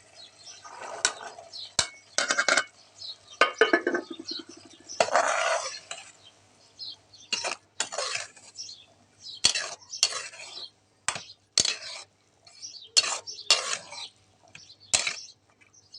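A metal spoon stirring and scraping in a cooking pot, in short, irregular strokes with clinks against the metal, and one longer scrape about five seconds in.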